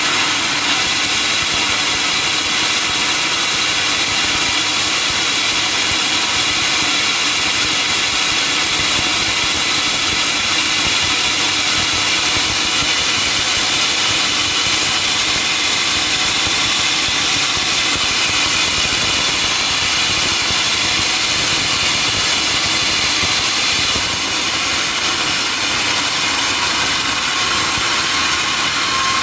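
Sawmill saw machinery running steadily at full power, a loud mechanical drone with a high ringing whine and no breaks.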